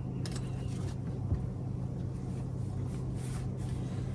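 A steady low mechanical hum, with a few faint ticks and a small knock about a second in.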